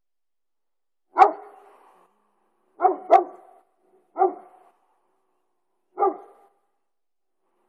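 Five short, sharp animal calls with silence between them, two of them in quick succession about three seconds in.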